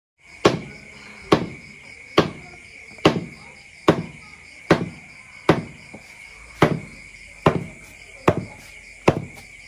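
Meat cleaver chopping raw pork belly into cubes on a plastic cutting board: about eleven sharp, evenly paced chops, a little more than one a second. Under them runs a steady high insect trill.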